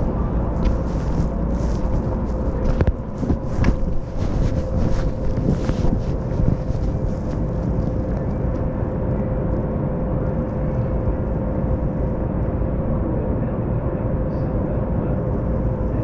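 Interior of a Las Vegas Monorail car: a steady low rumble with a constant whine, and a few sharp knocks and clatters in the first several seconds.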